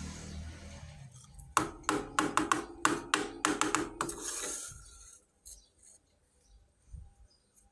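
Small hard toy kitchen pieces being handled: a rubbing rustle, then a quick run of about a dozen sharp clicks and clacks as the pieces knock together, then a brief rustle and a few faint ticks.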